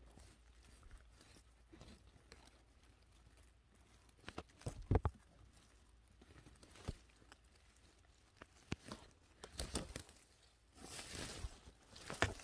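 Faint rustling and crunching of forest-floor litter and twigs, underfoot and in hand, during mushroom picking: a few scattered snaps, the loudest about five seconds in, and a longer rustle near the end.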